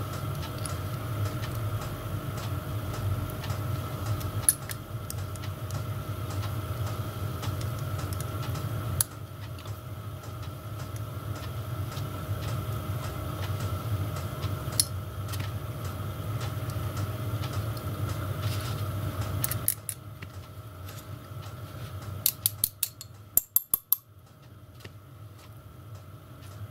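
Small metal clicks and clinks from a spanner, nuts and pins being worked on the linkage of a miniature steam locomotive's hand pump, with a quick cluster of sharp clinks near the end. Under them is a steady low hum that cuts out about three-quarters of the way through.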